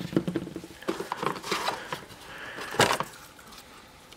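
Handling noise from an Apple laptop power adapter and its cable being lifted out of a packaging tray: rustling and scattered light clicks and knocks, with one sharper knock a little before three seconds in.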